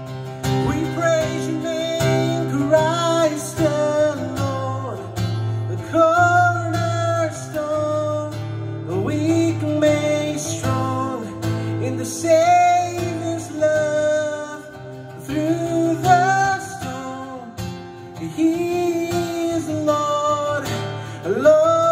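A man singing a slow melody over a strummed acoustic guitar, the voice rising and falling in long held notes.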